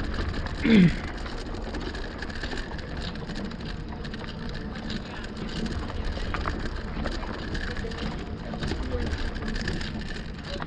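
Riding noise from a Lectric XP fat-tire e-bike: wind rumble on the camera microphone and tyre noise with small ticks from the trail, over a faint steady high whine. Near the start comes a short, loud falling voice-like sound.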